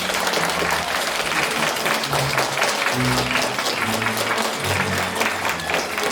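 Audience applauding, a dense continuous clatter of clapping, over music with a bass line.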